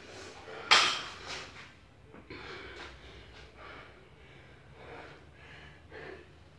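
A person breathing hard and rhythmically while exercising, in short noisy breaths about every half second to a second. A single sharp knock comes about a second in.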